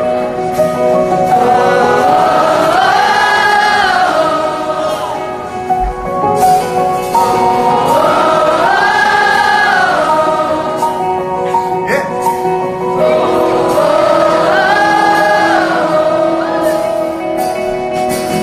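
Live pop band playing while many voices sing a wordless rising-and-falling refrain together, like a choir, three times about six seconds apart; the lead singer is off the microphone, so this is the crowd singing along.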